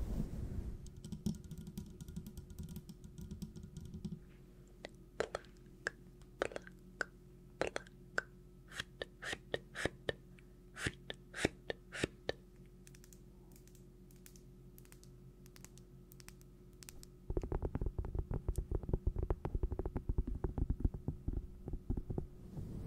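Sharp, irregular clicks and taps for several seconds over a faint steady hum, a quiet pause, then a dense, rapid crackle of small taps near the end.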